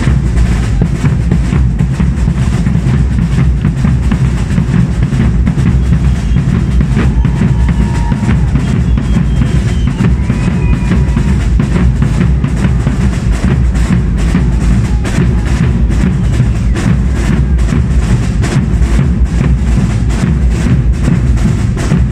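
A Portuguese bombos group of many large bass drums (bombos) and snare drums (caixas) playing together in a dense, driving, unbroken rhythm.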